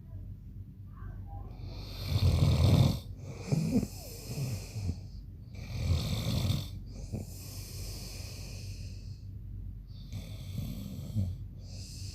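A man snoring in his sleep: a series of snoring breaths, the loudest and roughest about two seconds in, some of the others mostly a hissing breath.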